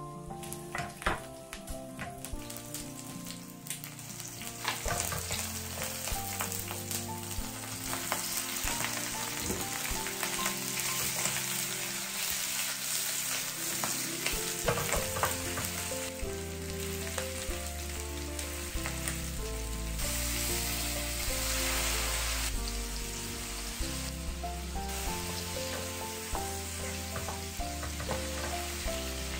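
Shrimp with ginger and spring onion sizzling in hot oil in a stainless steel frying pan, with a wooden spoon clicking and stirring against the pan. The sizzle grows louder about five seconds in. Soft background music plays underneath.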